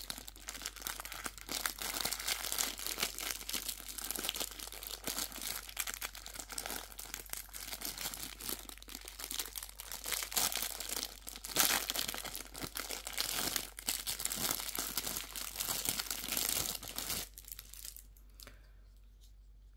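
Clear plastic packaging crinkling as hands pull it off a silicone baby spoon and fork, a dense crackle of small clicks that stops near the end.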